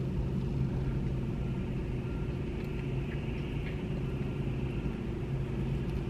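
Steady low hum of a car's idling engine, heard from inside the cabin.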